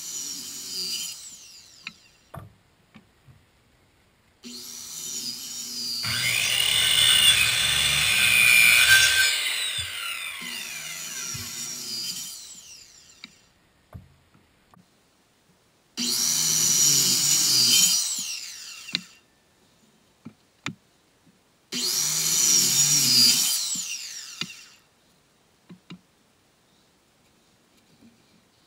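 Handheld circular saw cutting 2x12 dimensional lumber in three runs: a long cut of about eight seconds, then two shorter cuts of about three seconds each, the blade winding down after each one. Small clicks and knocks come in the quiet gaps between cuts.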